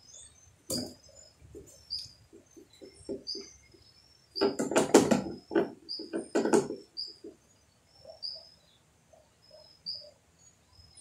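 A small bird chirps over and over, short high chirps about two a second. Near the middle comes a louder burst of knocking and sloshing as gasoline is poured from a plastic jug.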